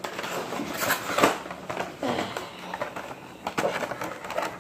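Cardboard and plastic toy packaging being handled and pulled open: irregular crinkling, rustling and scraping, with sharp little clicks and crackles.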